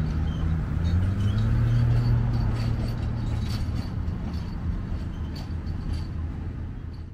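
Diesel engine of a stainless-steel Budd RDC self-propelled railcar running. Its engine note rises about a second in, then holds steady.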